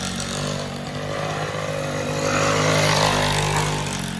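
Engine of a race-tuned 116cc underbone motorcycle running hard through a corner, its note held steady and growing louder about three seconds in before easing off near the end.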